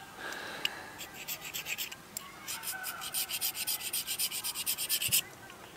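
Steel striker scraped rapidly along a 1/2-inch ferro rod, a rasping of about five strokes a second that starts about a second in and stops sharply near the end: scraping the coating off the new rod.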